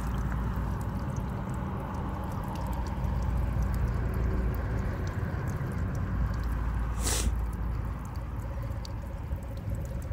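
Water trickling from the spout of a plastic water tank over hands rinsing a gutted goby, with small wet squishes as the fish is rubbed clean of its slime. A single sharp click about seven seconds in.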